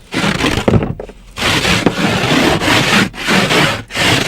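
Repeated rough scraping strokes on the frozen, snow-covered glass of a car window, in uneven strokes with short pauses between them.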